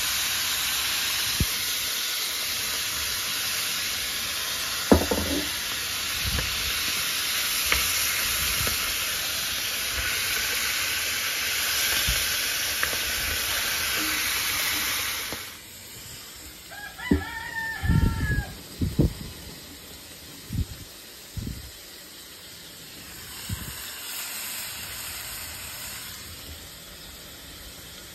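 Meat frying in oil in a skillet, a steady loud sizzle that stops abruptly a little over halfway through. Then a rooster crows once, briefly, amid a few knocks and clicks.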